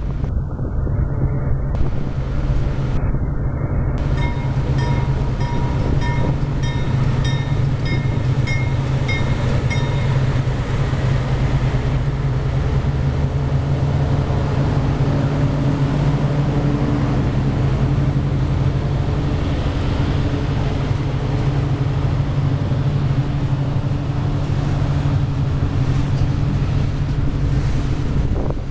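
Diesel-electric freight locomotives running under power as they pass at close range, their engines making a steady, loud low drone while pulling a loaded train away. A high, rapidly repeating ringing sounds from about four to ten seconds in. Near the end, loaded ore gondolas roll past.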